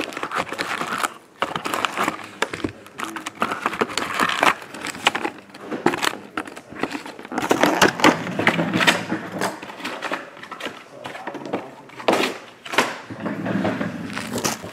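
Crinkling of cellophane wrap and foil card packs, with irregular scrapes and taps of a cardboard box, as a sealed box of Topps Chrome football cards is unwrapped and its packs are tipped out.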